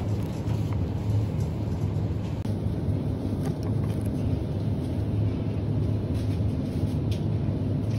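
Wire shopping trolley rolling on a tiled supermarket floor: a steady low rattling rumble from its wheels and basket, with a few light clicks.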